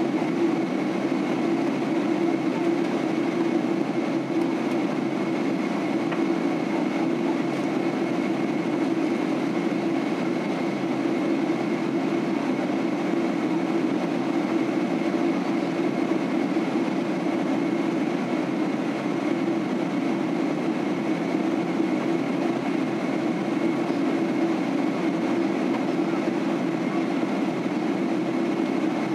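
Steady cabin noise inside a Boeing 767-300 airliner during its descent: the even drone of the engines and rushing airflow, with a thin high steady whine above it.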